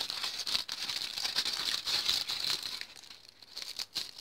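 Aluminium foil crinkling and crackling as it is handled around a pen, dense until nearly three seconds in, then thinning to a few sparse crackles.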